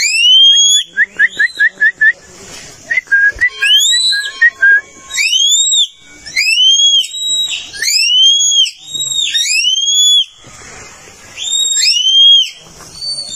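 Loud repeated whistles, about nine of them, each rising and then falling in pitch over roughly half a second. About a second in comes a quick run of seven short, lower chirps.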